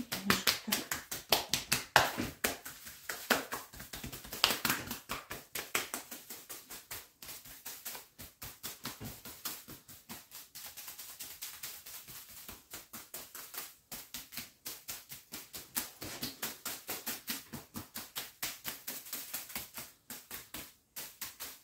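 Hands patting rhythmically on a person's back in massage, about four or five quick pats a second, louder in the first few seconds and softer after.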